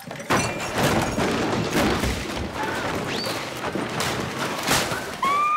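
A dense run of crashes, thuds and clatter, as of furniture knocked over in a scuffle. A brief rising tone comes near the end.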